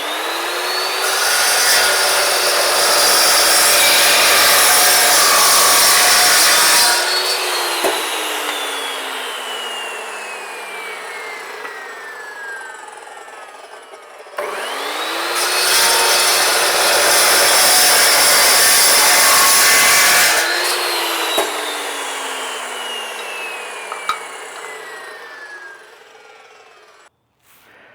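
An electric power saw cutting old rusted steel angle iron twice. Each time the motor spins up with a rising whine and cuts noisily for about five seconds. Then it is released and coasts down with a long falling whine.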